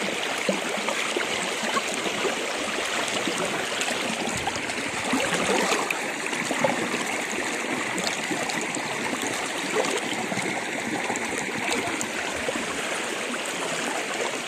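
River water rushing steadily, the river running high after rain.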